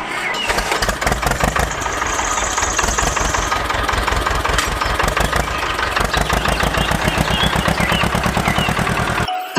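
An engine running steadily, with a rapid even beat of pulses.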